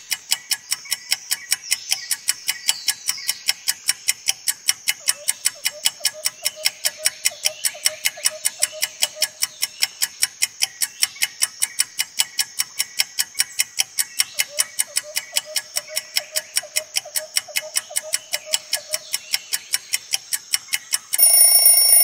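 Quiz countdown timer sound effect ticking fast and evenly like a clock, several ticks a second. Near the end it gives way to a short ringing alarm tone as the count reaches zero.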